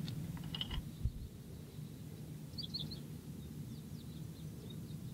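Open-field ambience: a steady low rumble with a few short, faint bird chirps about two and a half seconds in.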